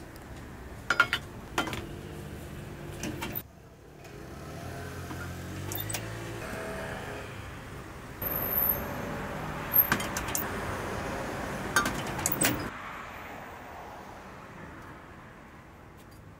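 Road traffic going by on a city street, with a few sharp metallic clicks and clinks.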